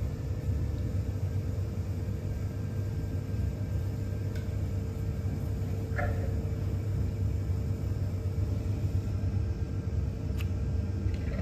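Steady low rumble with a faint steady hum throughout, the loudest sound. A lion cub gives one short, faint mew about six seconds in, and another call starts near the end.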